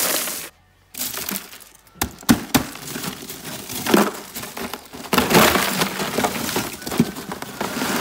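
Crushed ice being poured and pushed over a plucked chicken: crunching and clinking of ice chunks in several bursts, with a few sharp knocks about two seconds in.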